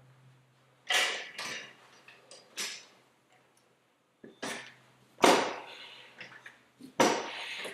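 Metal clanks and knocks as the steel bar and parts of a Rabaconda tire changer are handled and fitted onto the machine: a series of separate sharp knocks with a short ring, the loudest a little past the middle.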